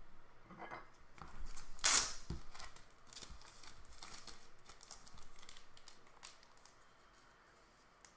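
Clear plastic trading-card holders being handled as a card is put into its case: plastic rustling and scraping with a sharp click about two seconds in, then a run of light ticks and taps.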